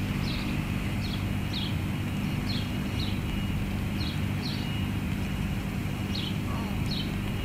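Outdoor ambience: a steady low mechanical hum, with short high chirps repeating in pairs about once a second.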